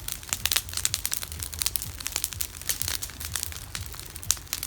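Wood campfire burning, crackling with many quick, irregular pops and snaps over a low steady rumble.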